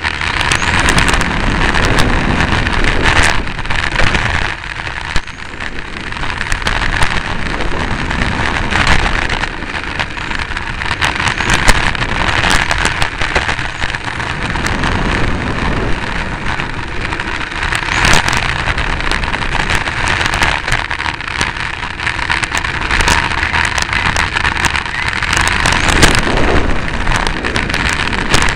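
Onboard sound of a 1/10-scale electric touring car (Xray T4) at racing speed: steady wind rush over the microphone and tyre rumble on the asphalt, with frequent small knocks from bumps and kerbs.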